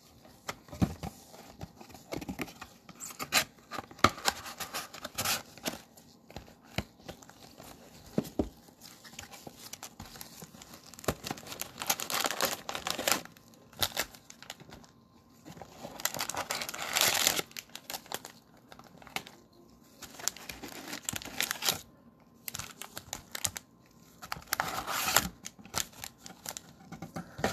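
Plastic shrink-wrap and cellophane card packs being torn and crinkled as a sealed box of trading-card cello packs is unwrapped and emptied. The rustling comes in irregular bursts with short pauses, loudest about halfway through.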